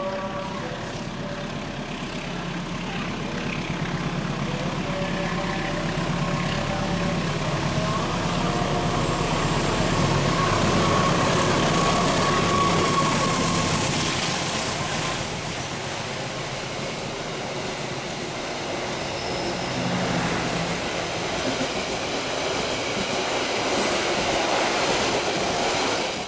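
Diesel-hauled passenger train passing through the station, the rumble of the engine and the wheels on the rails growing louder as it approaches and loudest about ten to thirteen seconds in as the locomotive and coaches go by. The rolling noise of the coaches carries on after that.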